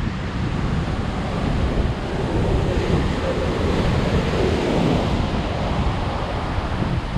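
High surf breaking and washing on a beach, with strong wind buffeting the microphone. The surf swells louder about three seconds in and eases off a couple of seconds later.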